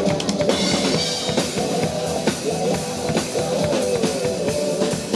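Live rock band playing an instrumental passage: drum kit with guitar, no singing.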